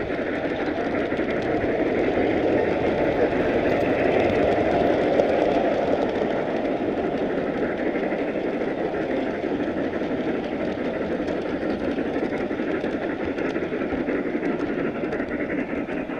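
Large-scale model train rolling along its track, heard from a camera riding on the train: a steady rolling rumble of wheels on rails with faint clicks, a little louder around four to six seconds in.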